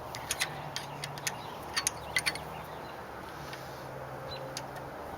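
Small sharp clicks of an Allen wrench turning screws into handlebar clamp collars: a quick cluster over the first couple of seconds, then a few scattered ticks, over a steady low hum.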